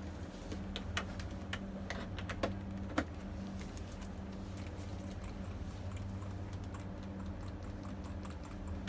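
Computer keyboard being typed on: scattered key clicks, a few louder ones in the first few seconds and quicker light taps near the end, over a steady low hum.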